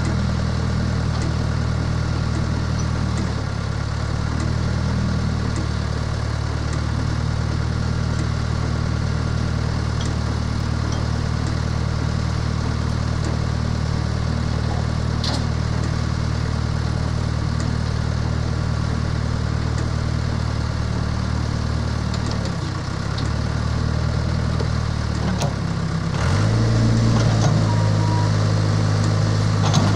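Case 580 Super H backhoe loader's diesel engine idling steadily. About 26 seconds in its note changes and it runs louder, as the backhoe arm is worked.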